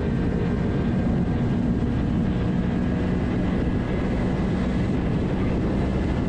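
Suzuki 250 sport bike engine running steadily at cruising speed on the highway, mixed with heavy wind rush on the rider-mounted microphone.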